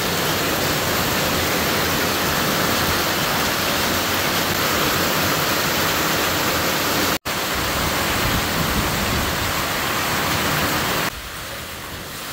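Heavy tropical-storm rain pouring down, a loud steady rush. It breaks off for an instant about seven seconds in and turns quieter shortly before the end.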